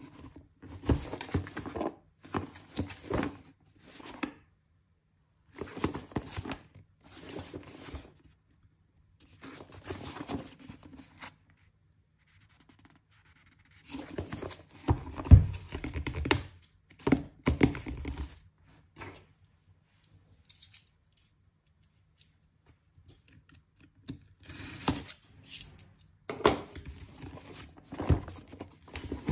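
Cardboard shipping box being opened by hand: packing tape torn and peeled off, cardboard scraping and flaps pulled open. The sounds come in short spells of a second or two with pauses between them, and there is a dull knock about halfway through.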